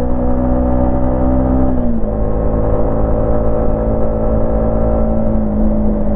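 Yamaha MT-15's single-cylinder engine and exhaust running at a steady speed while riding. The note drops a little about two seconds in, then sinks slowly.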